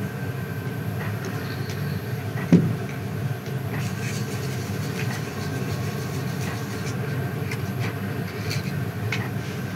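A steady low mechanical drone, with faint scattered clicks and one brief louder sound about two and a half seconds in.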